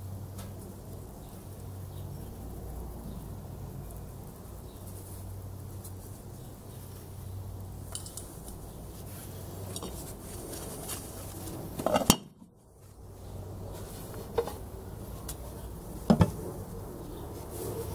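Metal-and-glass clinks and knocks as a cooking pot, a dial thermometer and the solar cooker's glass cover are handled and set down. The loudest knock comes about two-thirds of the way in, with two smaller knocks after it, over a steady low background rumble.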